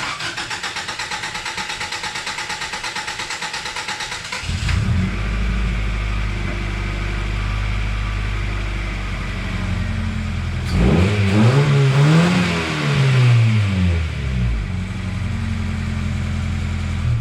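1999 Acura Integra four-cylinder engine cranked over by the starter for about four seconds, then catching and settling into a steady idle. Partway through it is revved once, rising and falling in pitch, and then idles again, running on a newly fitted distributor cap and rotor.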